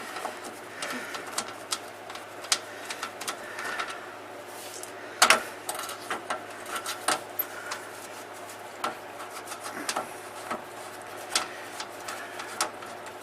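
Irregular small clicks and taps of screws being turned out and a small access plate being handled under the side-by-side, with one louder knock about five seconds in.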